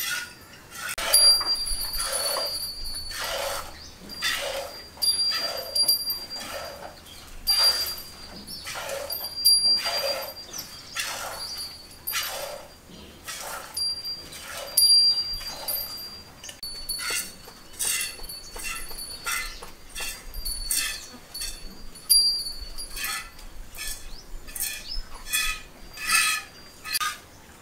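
Hand-milking a cow into a steel pot: milk jets squirt into the vessel in a steady rhythm of short hissing strokes, about one a second at first, quickening to about two a second in the second half.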